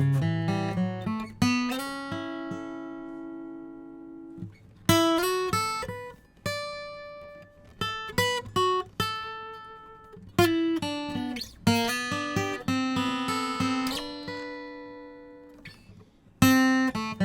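Martin D12E dreadnought acoustic guitar (sitka spruce top, sapele back and sides) being flatpicked: quick single-note runs and picked chords. Twice a chord is left ringing and dies away, about 2 s in and about 12 s in.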